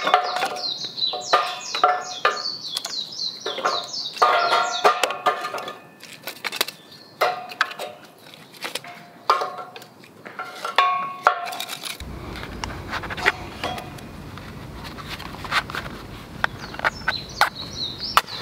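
Split firewood and thin kindling sticks knocking and clattering against each other and the metal mesh fire pit as they are stacked by hand, in irregular wooden clunks. About twelve seconds in, the clatter gives way to a quieter steady background with only occasional light taps.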